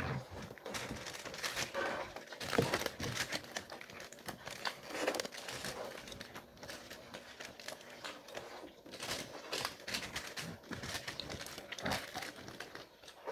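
Eating and food-handling sounds: irregular crackling, crinkling and crunching, with many short clicks.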